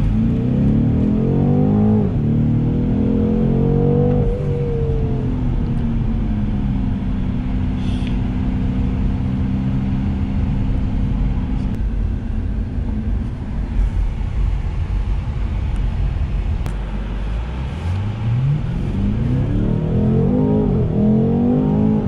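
2020 BMW M850i's 4.4-litre turbocharged V8 accelerating hard from a launch-control start, heard from inside the cabin. The note rises in pitch through two upshifts in the first few seconds, then holds steady for several seconds while cruising, and rises again in another hard pull near the end.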